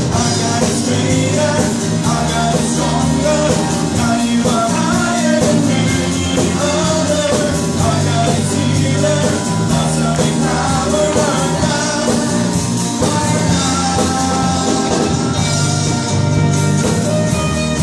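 Live worship band playing: several singers, women and a man, singing into microphones over acoustic and electric guitars, with a steady beat.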